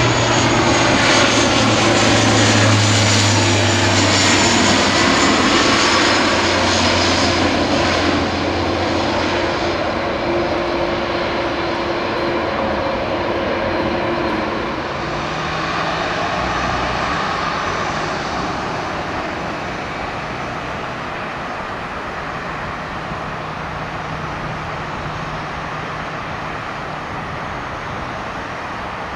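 De Havilland Canada Dash 8-400 (Q400) turboprop airliner flying past low on landing approach: a loud, steady propeller drone with low humming tones. It is loudest in the first few seconds and eases after about ten seconds. From about fifteen seconds in the tone changes as the plane rolls out on the runway, leaving a lower, steadier engine noise.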